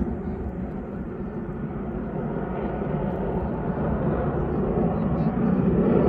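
Airplane flying overhead, its engine noise a dense rumble that grows steadily louder as it approaches.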